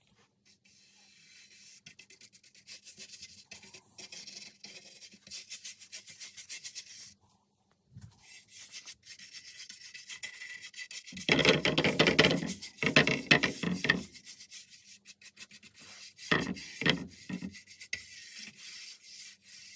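Oil being rubbed into an oak wood surface in rhythmic back-and-forth strokes, with a brief pause, a run of louder, heavier strokes about halfway through, and a few separate strokes near the end.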